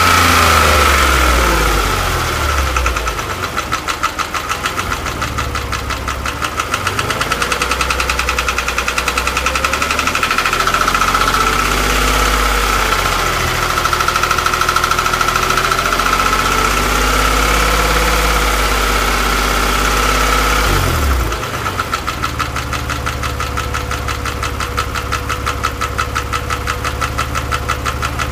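Porsche 997 flat-six engine idling warm, with a fast, even knocking and a steady high whine over the running; it is the abnormal noise that the owner cannot identify. The engine note wavers a few times, and about two-thirds of the way through the sound becomes quieter and duller.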